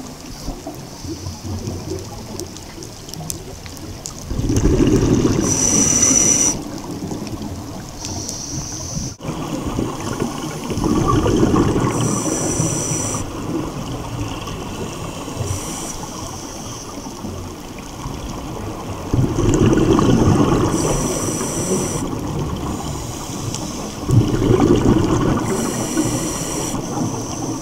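Scuba diver breathing through a regulator, heard underwater: short hissing inhalations alternate with loud rushing bursts of exhaled bubbles, repeating every several seconds. There is a brief break about nine seconds in.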